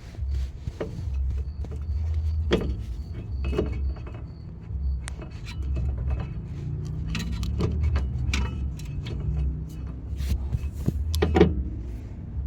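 Scattered light metallic clinks and knocks as the rotor and wheel bearing parts are handled and fitted onto the spindle, over a low uneven rumble.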